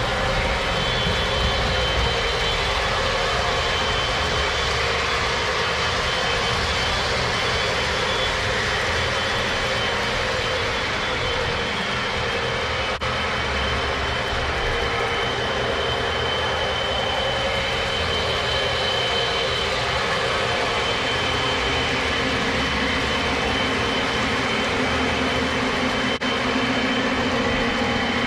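Several Lionel O-gauge model trains running at once on the layout: a steady mix of motor hum and wheels on the track.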